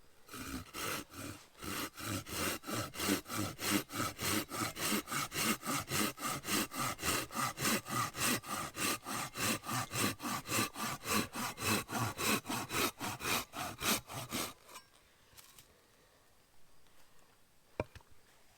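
Hand saw cutting through wood in steady back-and-forth strokes, about four a second, stopping about fifteen seconds in. A single sharp click follows near the end.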